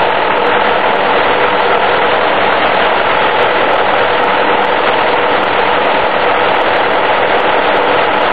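1951 Farmall M's four-cylinder engine idling steadily.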